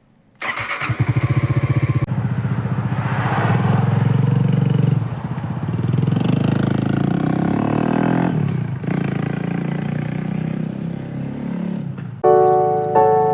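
Honda Hunter Cub's single-cylinder four-stroke engine started: it catches about half a second in and runs, the revs rising and falling. Background music comes in near the end.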